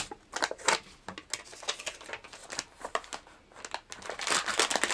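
Handwriting on paper: a quick run of short scratchy pen strokes, densest near the end.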